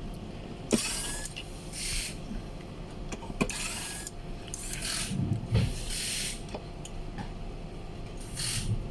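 Screws being worked out of a car stereo head unit's metal case with a screwdriver: repeated short scraping bursts with a few sharp metal clicks, over a steady low hum.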